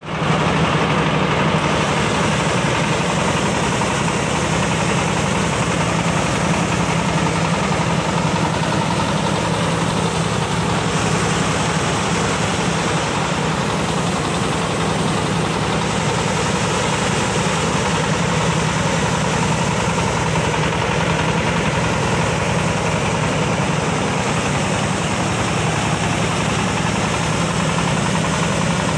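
Single-cylinder water-cooled diesel engine of a three-wheel air-blast orchard sprayer running steadily, with the rush of its 700 mm fan blowing spray mist.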